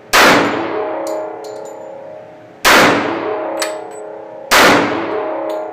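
Glock 21 .45 ACP pistol fired three times inside an indoor range, a shot right at the start and two more about two seconds apart, each ringing out in a long echoing tail. Light metallic ticks sound between the shots.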